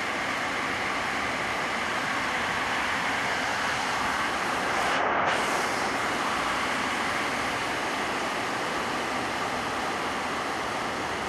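Heavy rain falling steadily, pattering on corrugated metal roofing.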